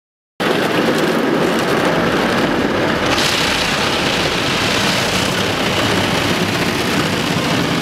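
Automatic car wash spraying water over a car's glass: a loud, steady rush and drumming of water that starts suddenly about half a second in and turns hissier about three seconds in.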